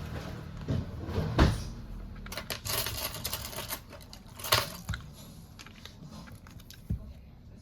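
Irregular clicks and knocks of small hard objects being handled, with the loudest knock about a second and a half in, a quick run of clicks a little later, and single knocks near the middle and near the end.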